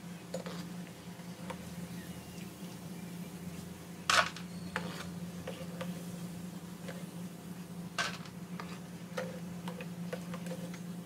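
Perforated metal slotted spatula clinking and scraping against a nonstick frying pan while stirring shakarpara frying in oil, with the sharpest clink about four seconds in and another about eight seconds in. A faint sizzle of the frying oil and a steady low hum lie underneath.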